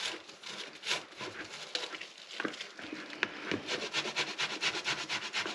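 Boiled potatoes being grated on a hand grater: quick rasping strokes, irregular at first, then a steady run of about five or six a second.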